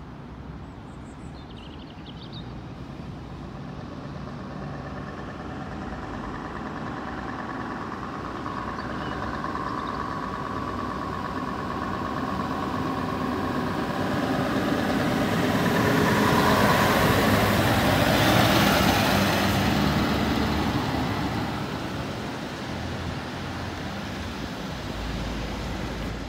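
Scania R580 V8 truck pulling a loaded low-loader, its engine running as it drives slowly toward and past. The sound grows louder to a peak about two-thirds of the way through, then fades as it moves away.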